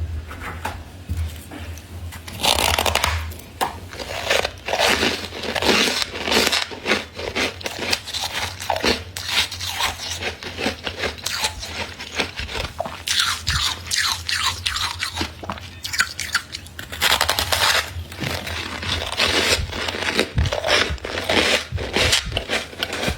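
Close-up crunching and scraping of freezer frost: a dense, continuous run of crisp crackles.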